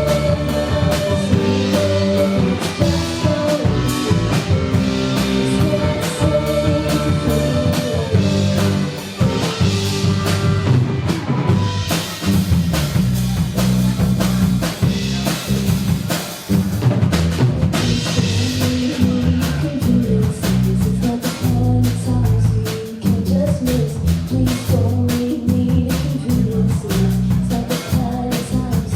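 Live band playing, with a drum kit prominent over guitar and bass.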